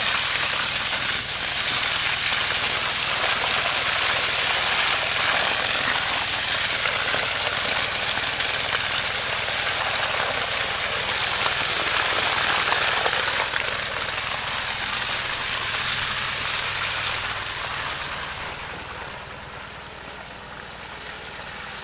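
Thick septic sludge gushing and splattering out of a discharge hose into a soil furrow, with an engine running steadily underneath. The gushing grows fainter over the last few seconds.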